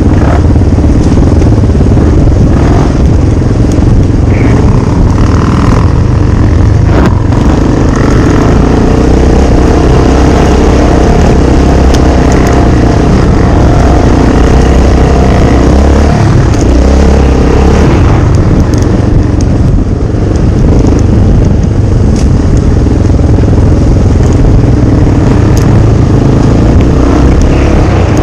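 A motor vehicle engine running loud and steady, its note dropping out and shifting briefly about sixteen seconds in.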